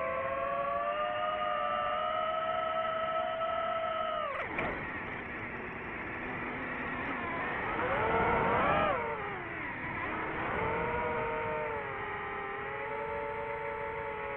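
DJI FPV drone's electric motors and propellers whining, their pitch following the throttle: a sudden drop about four seconds in, a climb to a loud peak near nine seconds, a quick fall, then a steadier whine.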